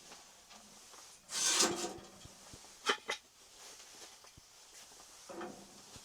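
A few brief scraping, rubbing handling noises, the loudest a second or so in, with a short sharp click near the middle.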